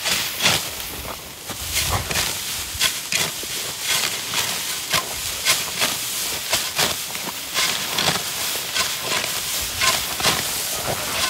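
Hand sickles slicing through bunches of dry stalks: repeated quick swishing, crackling cuts, irregular at about one or two a second, with the rustle of the gathered stalks.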